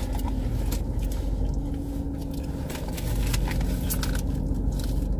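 Steady low rumble of a car cabin, with scattered crinkling and rustling of paper and foil fast-food wrappers being handled.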